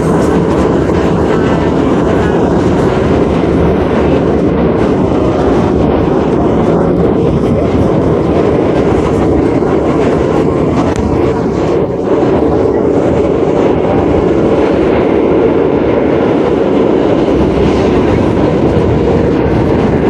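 Ride inside an R62A subway car: steady running noise of wheels on rail and the car's motors, with some clickety-clack, and a weird hum.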